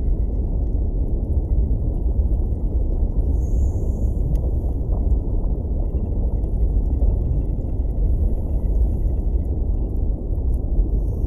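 Underwater ambience: a steady low rumble of moving water, with occasional faint clicks.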